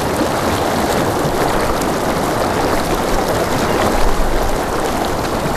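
Small, fast-flowing stream rushing through a narrow grassy channel: a steady rush of water.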